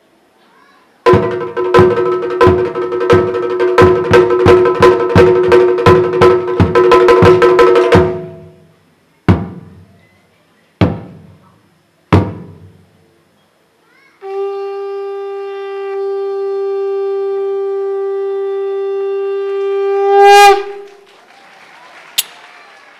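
A chende barrel drum beaten with two curved sticks in a roll that speeds up, then three single strokes about a second and a half apart. Then a conch shell is blown in one long steady note of about six seconds, which swells louder just before it cuts off.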